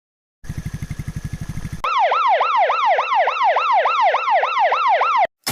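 A low, rapidly pulsing buzz for about a second and a half. Then an emergency vehicle's electronic siren cycles in a fast yelp, about four rising-and-falling sweeps a second. It cuts off suddenly and a sharp crash hits at the very end.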